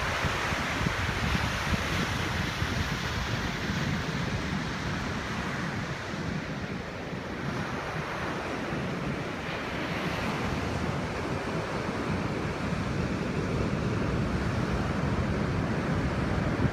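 Ocean surf breaking on a sandy beach: a steady rush of whitewater, with wind gusting on the microphone.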